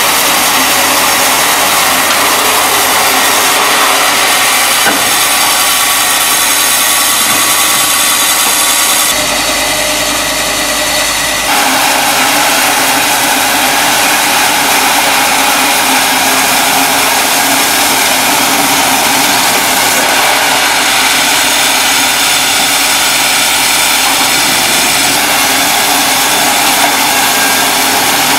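Serra Africa SL 160 horizontal band sawmill running loud and steady, its band blade cutting through a large oak log about 1.4 m thick. The sound eases slightly at about 9 seconds and picks back up a couple of seconds later.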